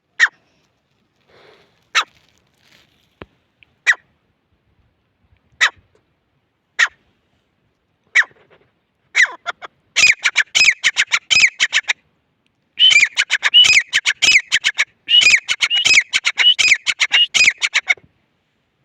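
Gray francolin calling: single sharp notes a second or two apart, then, from about ten seconds in, three runs of rapid repeated shrill notes.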